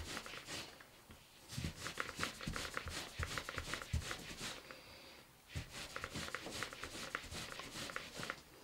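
Hands rubbing and rolling a damp, soaped wool dread on a coarse terry towel to felt it: a fast run of scratchy back-and-forth rubbing strokes, broken by a short pause about halfway.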